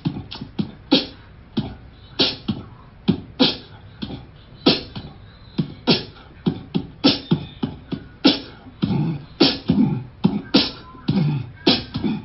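A fast, uneven run of sharp percussive clicks and thumps, about two to three a second, in the manner of beatboxing.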